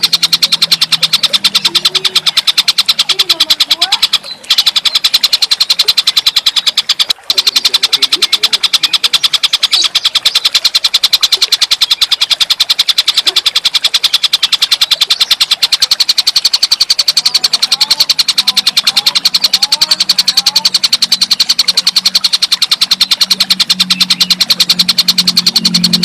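Recorded call of a tengkek buto (Javan kingfisher): a fast, unbroken rattling series of notes, cut by two brief breaks about four and seven seconds in. Faint chirps from other birds come through in the middle of the stretch.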